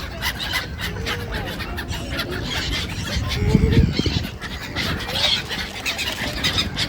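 A flock of gulls calling, many short overlapping calls and squeals. A brief low rumble a little past halfway is the loudest sound.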